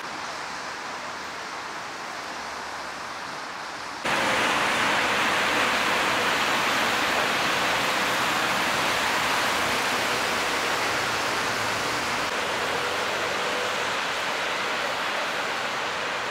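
Steady hiss of road traffic: cars and motorcycles passing on wet asphalt, their tyres hissing. It jumps louder about four seconds in.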